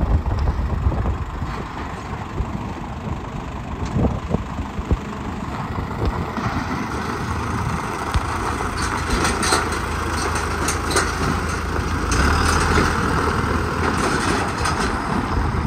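Isuzu NPR flatbed truck's engine idling steadily.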